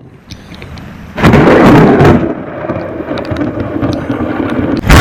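Thunder during a lightning storm: a sudden loud crack about a second in, rolling rumble after it, and a second sharp crack near the end.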